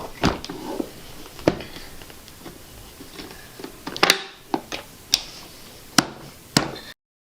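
Sharp plastic clicks and knocks, about seven spread out, as the parts of a Numatic Henry vacuum cleaner are handled and fitted back together. The sound cuts off abruptly near the end.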